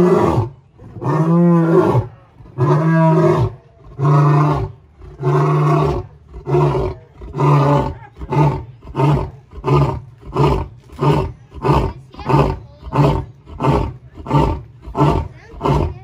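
Male lion's roaring bout: a few long, deep roars, each about a second, followed by a run of shorter grunting roars that come quicker and quicker, nearly two a second by the end.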